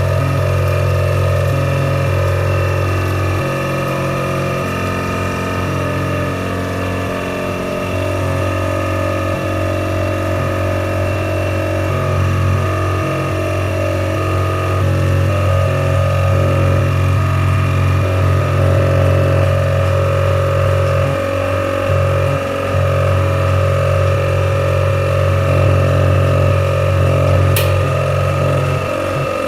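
Vacuum pump of a vacuum leak tester running with a steady hum while the test chamber is held at about 600 mmHg of vacuum. A brief click sounds near the end.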